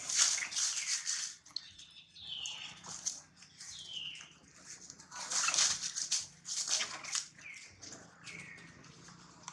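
Macaques shrieking in a fight with a dog: repeated high calls that slide down in pitch, mixed with rustling and scuffling through dry leaves.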